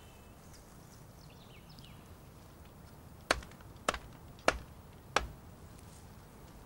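Four sharp chops into wood, about two-thirds of a second apart, as the butt ends of a wire-bound birch-twig besom are trimmed with a blade.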